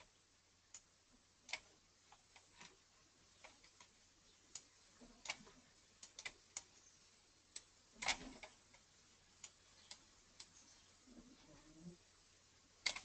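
Near silence broken by faint, irregular clicks of a computer mouse, about twenty of them scattered unevenly.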